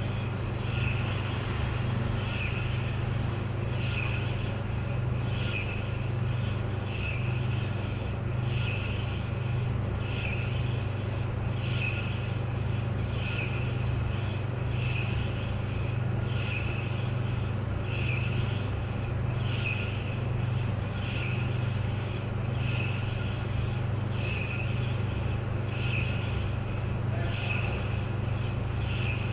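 Clothes dryer running: a steady low hum with a higher-pitched sound that repeats about once a second.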